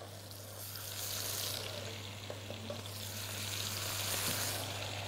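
Entrecote slices sizzling as they fry in hot butter and oil in a stainless steel pan. The sizzle is a steady hiss that swells twice as more slices are laid into the fat.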